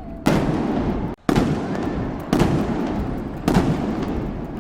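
Fireworks bursting: four sharp bangs about a second apart, each trailing off over about a second.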